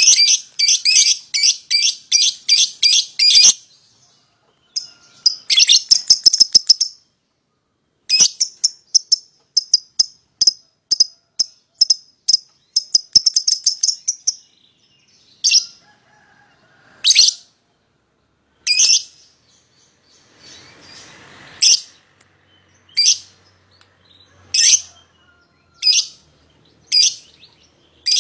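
Young lovebirds calling: rapid runs of high, shrill chirping calls in bouts through the first half, then single sharp calls every second or two.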